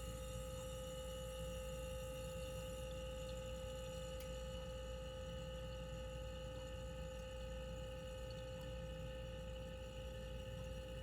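Compressor of a 1980s Gold Star mini refrigerator running on R12 just after start-up: a quiet, steady hum with an even tone.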